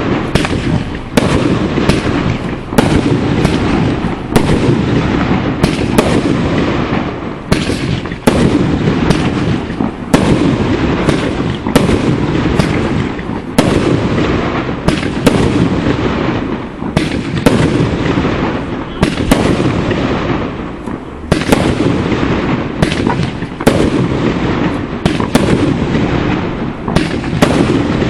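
Aerial fireworks display: a rapid, unbroken barrage of shell bursts, several loud bangs a second, each trailing off in crackle and echo.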